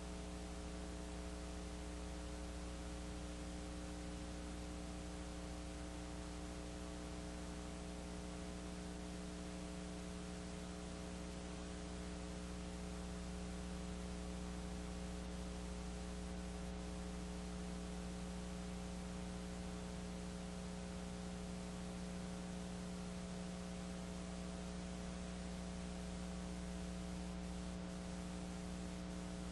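Steady electrical mains hum, a low drone with a row of fainter higher tones above it, over an even hiss. It is unchanging throughout, with no crowd, whistle or game sound audible.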